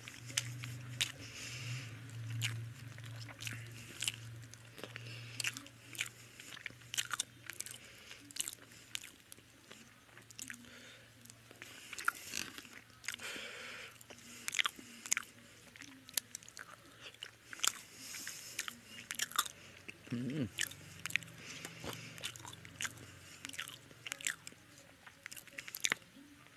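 Close-up chewing and lip-smacking of a man eating rice and fish curry by hand, with many short wet mouth clicks scattered through. A steady low hum sits underneath for roughly the first ten seconds and again for a few seconds past the middle.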